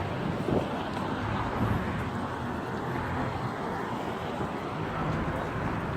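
Busy outdoor ambience: a steady wash of city noise with the faint voices of a crowd of people.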